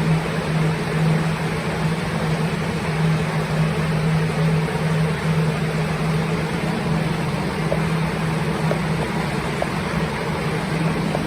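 Plastic blower fans running steadily to dry a water-soaked ceiling: an even rush of air with a strong low hum.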